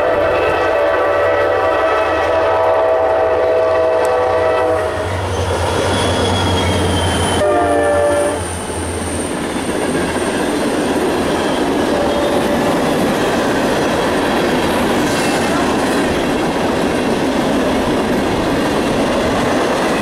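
CSX SD40-2 diesel locomotives sound a multi-note horn for about the first five seconds, then give a second short blast about seven and a half seconds in as they pass. The freight train's cars then roll by with steady wheel-on-rail noise and clickety-clack.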